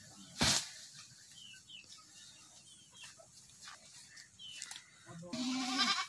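A heavy thump about half a second in as a bundle of cut green fodder is dropped on the ground, then a goat bleats once near the end.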